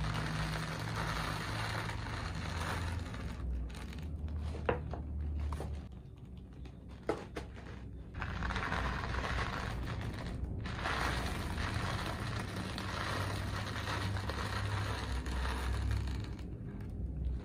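Plastic pearl beads pouring from a plastic tub into a zip-lock bag with a rustling rattle, mixed with plastic bag crinkling as the bags are handled. Two sharp clicks come a few seconds apart partway through.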